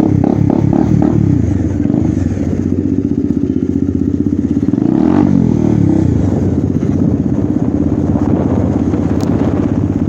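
Bajaj Dominar 400's single-cylinder engine running loud with its exhaust removed, an open-pipe note while riding. About halfway through the revs rise and then fall away again.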